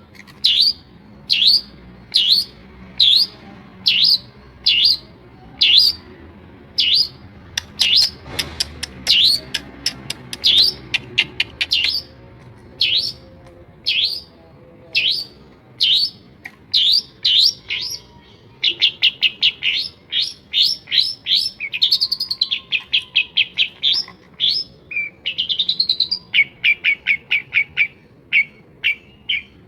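Long-tailed shrike singing: a long series of sharp down-slurred notes, about two a second. After about 18 seconds it switches to fast rattling runs of short notes, with a rising glide near 25 seconds.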